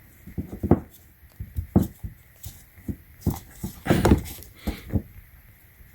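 Hard plastic knocks, clicks and scraping as a J1772 charging plug is forced and worked into a J1772-to-NACS adapter, with a louder cluster of knocks about four seconds in.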